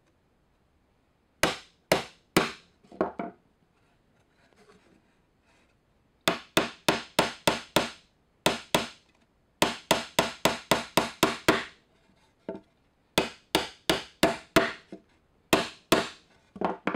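Claw hammer driving nails into a cedar fence-picket board: several quick runs of sharp blows, about four a second, separated by short pauses, starting about a second and a half in.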